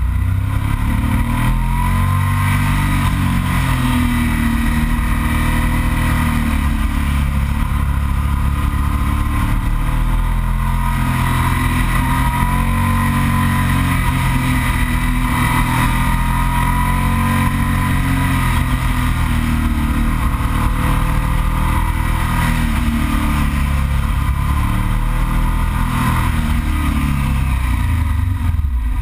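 Yamaha TDM 900's parallel-twin engine running under way, its revs rising and falling through a series of bends, over a heavy low rumble of wind on the microphone.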